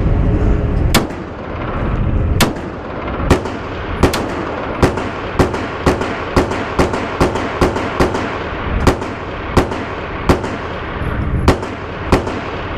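Daniel Defense H9 9mm pistol firing its first string of shots: a series of sharp gunshots, spaced from about half a second to over a second apart.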